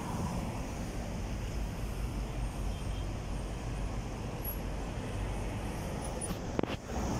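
Street traffic: cars driving past on a city road, a steady low rumble of engines and tyres. A short sharp click or knock comes near the end.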